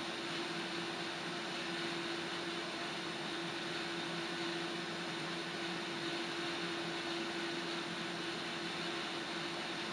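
Water heating in a kettle on a gas stove burner: a steady hiss with a constant low hum tone.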